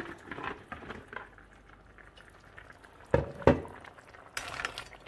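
Tomato curry sauce with crab pieces simmering and bubbling in a pot on the stove. About three seconds in, a utensil knocks twice sharply against the pot, and a brief rattle follows about a second later.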